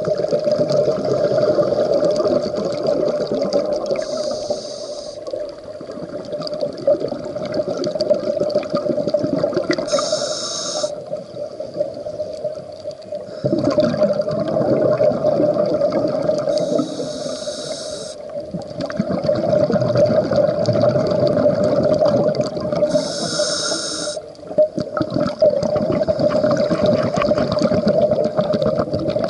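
Scuba breathing heard underwater through a regulator: a hissing inhale about every six to seven seconds, four times, with the rush and gurgle of exhaled bubbles between, over a steady low hum.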